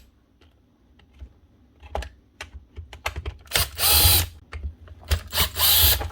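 Screws being worked out of a cordless strimmer's plastic guard with a hand tool: scattered clicks and taps, then two longer rasping, ratchet-like stretches in the second half.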